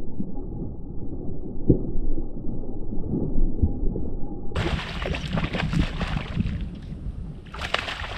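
A low, muffled rumble, then from about four and a half seconds in, irregular bursts of splashing as a hooked bass thrashes at the water's surface while it is being fought.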